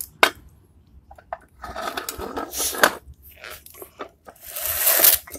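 Handling noise of engine parts and their packaging: a sharp knock just after the start, then rustling and crinkling of plastic wrap and a cardboard box, loudest near the end.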